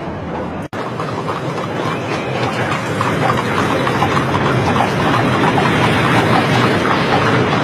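Horse-drawn carriages passing: many hooves clopping and wheels rattling and rolling, growing louder over the first few seconds. Less than a second in, a crowd murmur cuts off abruptly just before it.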